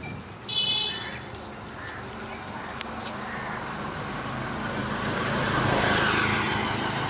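Street traffic: a short horn toot about half a second in, then a motor vehicle, an auto-rickshaw, coming up and passing close, its noise swelling to its loudest near six seconds over a steady low engine hum.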